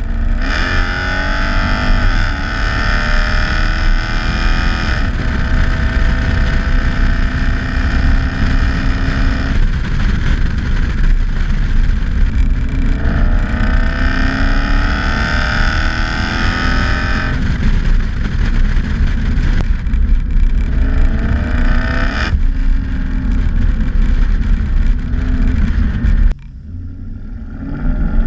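Toyota 1UZ V8 engine pulling hard, its pitch climbing, dropping at each gear change, and climbing again several times. A high band of noise from the drivetrain rises with each pull. Near the end the sound suddenly falls much quieter.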